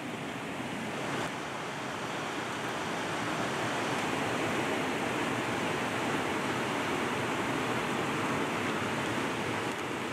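Steady rushing of a river's flowing water, a little louder from about a second in.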